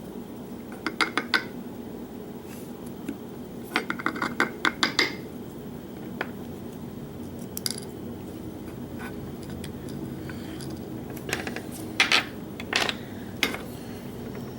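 Small metal lock parts, the pins and springs of a disassembled lock core, clinking and tapping as they are handled and set down, in a few short clusters of clicks.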